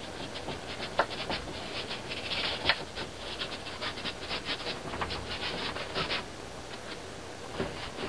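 Paintbrush scrubbing acrylic paint onto a stretched canvas in quick, short scratchy strokes, several a second, stopping about six seconds in with a couple more strokes near the end.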